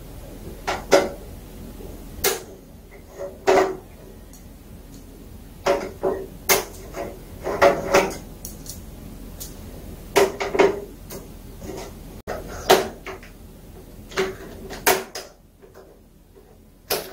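Irregular clicks and knocks of a screwdriver and small metal parts against the sheet-metal backlight tray of an LG 42LN5400 LED TV, as the bolts holding the LED bar connector board are worked loose. The sounds come singly or in quick pairs, a dozen or so.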